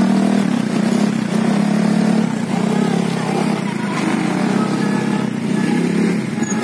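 A steady drone of many motorbike and scooter engines running and passing slowly in dense traffic.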